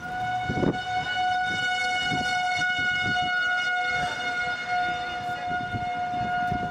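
Outdoor tornado warning siren sounding one steady, unbroken tone, the town's warning that a tornado is near. Irregular low rumbling noise runs beneath it.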